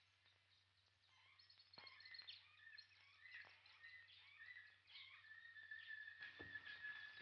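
Faint bird calls: short high chirps and whistles starting about a second in, then one long steady whistle near the end.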